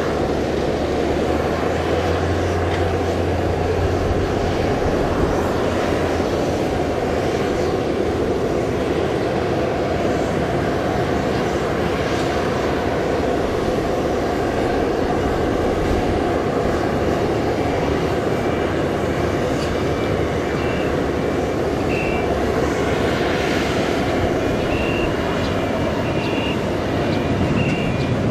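Jet engines of an Airbus A320-214 at takeoff thrust during the takeoff roll and liftoff: a steady, loud rushing noise that holds at much the same level throughout.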